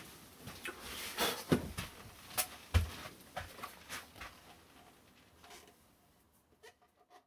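Handling noises as an electric guitar is moved about: rustling and a scatter of light knocks and clicks, the loudest a dull thump about three seconds in, fading away near the end.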